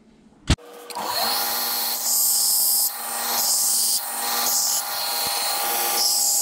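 A sharp click about half a second in, then a belt grinder running, with the steel saw-blade batarang pressed against the belt in repeated passes roughly once a second, each pass adding a harsh grinding hiss.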